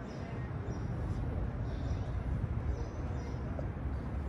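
Steady outdoor background noise with a low rumble and a few faint high chirps; no distinct event.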